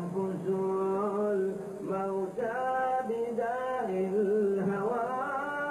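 A man singing an Arabic devotional song (qasida) in long, held, wavering notes that slide between pitches, phrase after phrase.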